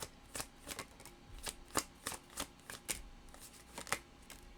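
A deck of tarot cards being shuffled by hand: a quick, uneven run of short card slaps and clicks, about three a second.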